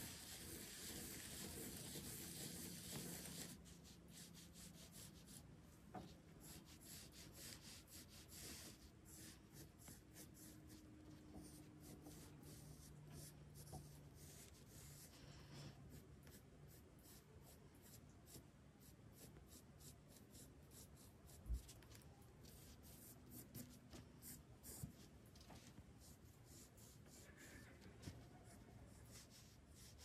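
Pencil scratching lightly on paper in many short strokes as a circle is sketched, quiet throughout. A single low thump about two-thirds of the way through.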